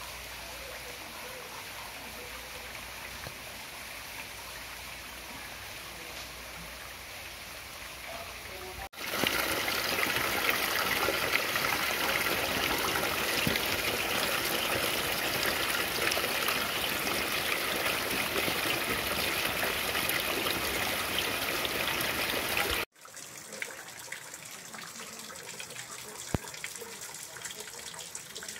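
Steady rain falling on a leafy shrub. About nine seconds in it cuts to loud rainwater runoff rushing down a concrete channel, the loudest part. Near the end it cuts to quieter steady rainfall.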